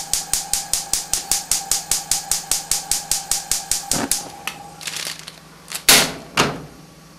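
Gas stove's spark igniter clicking rapidly, about seven clicks a second, over a steady high tone; the clicking stops about four seconds in, and two short, loud whooshes follow near the end as the burner flames up.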